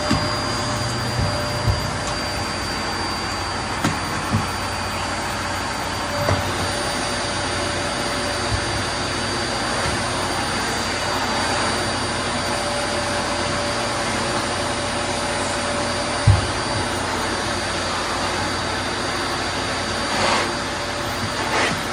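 Vacuum cleaner running steadily, an even rush with a steady whine in it. A few short low bumps come through, the strongest about sixteen seconds in, and a brief louder rush near the end.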